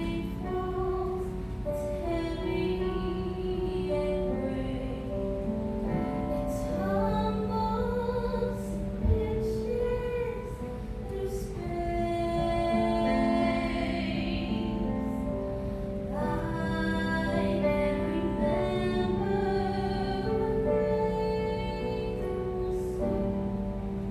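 A woman singing a slow song with held notes over a musical accompaniment, with one short thump about nine seconds in.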